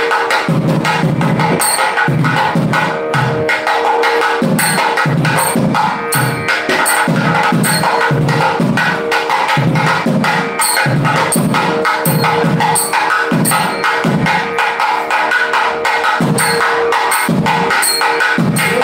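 Music with a steady drum beat and sharp percussion strikes over a held drone tone.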